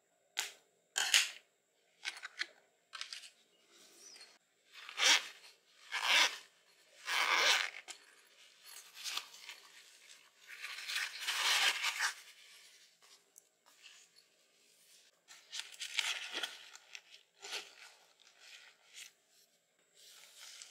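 Zipper of a plush cosmetic bag pulled open in a series of short scratchy rasps, some about a second long, mixed with rustling of the bag's fabric being handled.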